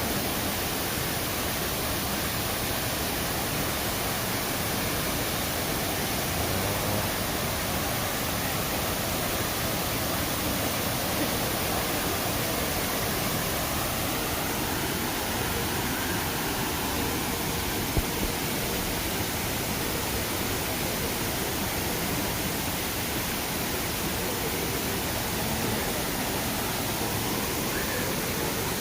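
Shiraito Falls, a wide curtain of thin streams of water pouring down a rock face, making a steady, even rush of falling water. A single short knock sounds about halfway through.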